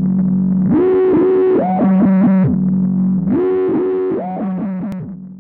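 Synthesizer intro music: a melodic phrase with notes gliding up and down, played twice over a steady held low note, fading out near the end.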